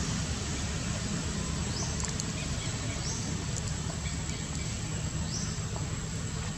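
Outdoor ambience among trees: a steady low rumble and hiss with a constant thin high whine, and short rising chirps repeating every second or two, with a few faint clicks.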